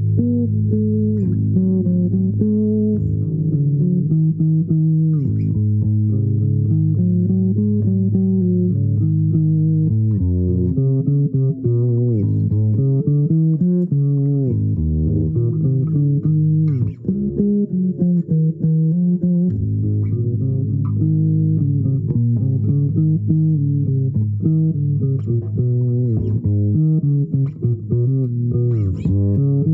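Improvised melody on a low-pitched plucked string instrument, the notes sliding up and down over a steady low tone.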